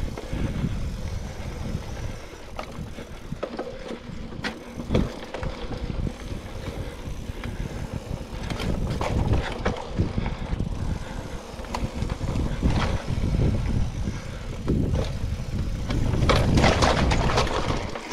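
Mountain bike ridden over dirt singletrack, picked up by a bike-mounted or body-mounted action camera: a constant low rumble of tyres and air on the microphone, broken by knocks and rattles of the bike over bumps and roots, rougher near the end.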